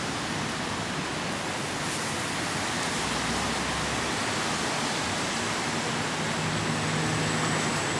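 Steady hiss of rain falling. A low hum comes in near the end.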